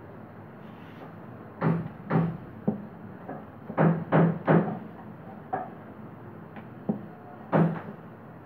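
Wooden rolling pin rolling dough out thin on a wooden board, knocking against the board in quick groups of two or three dull thumps, with a few single knocks later.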